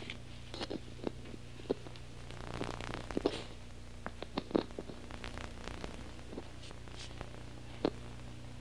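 Scattered light knocks and rustles of children shifting on their chairs, over a steady low hum.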